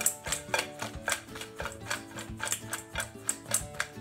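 Cut tortilla pieces tossed in oil in a shaken stainless-steel mixing bowl, clicking against the metal several times a second. Background music with sustained notes plays under it.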